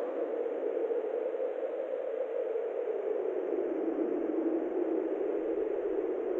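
Steady static-like rushing noise, its low band sinking slightly about halfway through.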